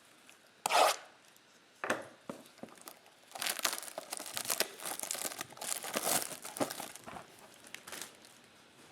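Trading-card blaster box packaging being torn open: a sharp rip about a second in and another near two seconds, then several seconds of continuous crinkling and tearing of plastic wrap and pack wrappers.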